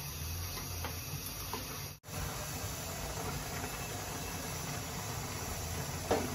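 Steady hiss of a pot of noodles boiling hard on a gas burner. The sound cuts out for an instant about two seconds in, and there is one brief knock near the end.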